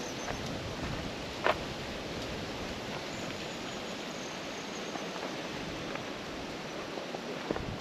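Steady outdoor background hiss, with a single sharp knock about a second and a half in.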